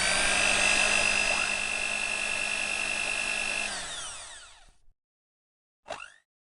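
Electric blender motor spinning up with a rising whine, running steadily at high speed, then winding down and stopping about four seconds in; a brief spin-up burst follows near the end.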